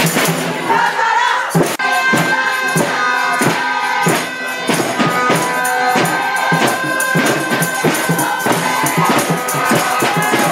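Music with a steady, driving beat and sustained tones.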